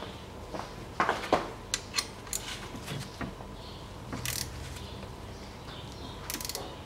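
Light metallic clinks and knocks of a hand tool against a Chevrolet TrailBlazer's transfer case as it is fitted to a plug, with two short rattles in the second half.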